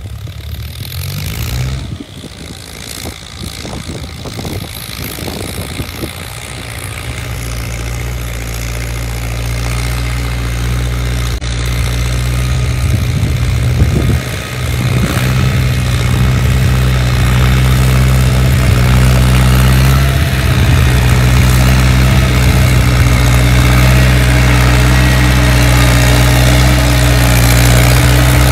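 Ford New Holland 6610 tractor's four-cylinder diesel engine running steadily while it pulls a disc harrow through the field, growing louder as the tractor draws near.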